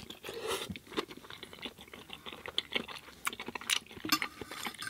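A person chewing a mouthful of pasta in tomato sauce with plant-based sausage, close to the microphone: irregular short smacks and clicks of the mouth.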